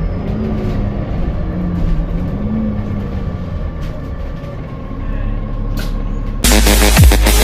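Alexander Dennis Enviro400MMC double-decker bus idling with a steady low running sound, a fixed whine and a fainter tone that wavers up and down, the weird idling sound this bus is known for. About six and a half seconds in it cuts suddenly to loud electronic dance music with a heavy beat.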